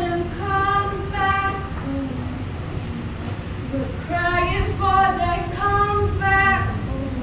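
A female voice singing a slow, unaccompanied melody in long held notes, in two phrases: one at the start and another from about four seconds in.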